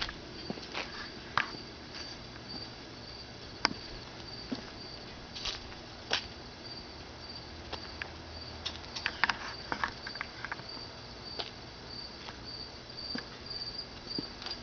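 Crickets chirping steadily in a continuous high trill, with scattered light clicks and taps.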